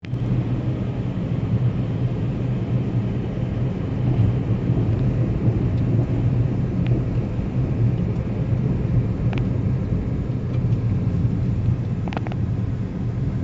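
Steady low rumble of a car travelling along a road, with a few faint short ticks.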